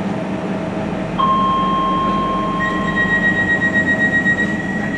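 Inside a Docklands Light Railway carriage: a steady electrical hum. About a second in, a steady electronic tone starts, and a second, higher tone joins partway through. A short thump comes at the very end.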